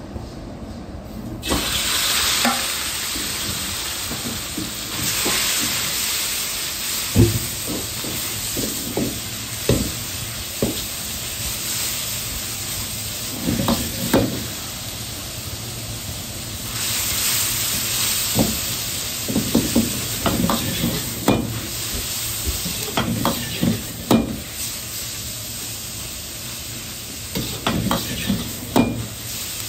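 Sliced pork sizzling in hot oil in a wok, starting suddenly as the meat goes in about a second and a half in. A metal wok spatula scrapes and clanks against the wok again and again as the meat is tossed.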